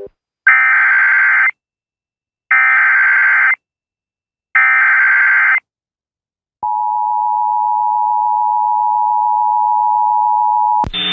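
Emergency Alert System signal: three one-second bursts of screeching SAME digital header data, two seconds apart, then after a short silence a steady attention tone for about four seconds that cuts off just before the end. It opens a National Weather Service flash flood warning.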